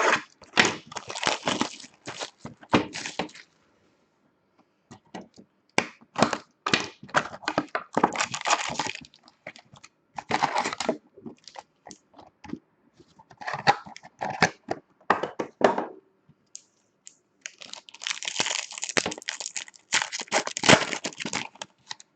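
A sealed hockey-card hobby box and its card packs being torn open by hand, in several stretches of cracking, tearing and crinkling of cardboard and wrapper.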